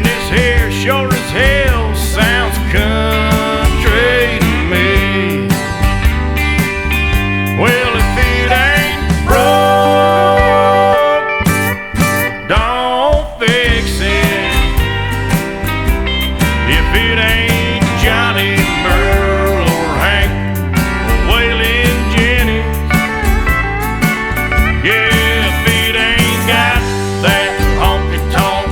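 Country music with guitars and sliding steel-guitar lines over a steady beat, with a brief break about eleven seconds in.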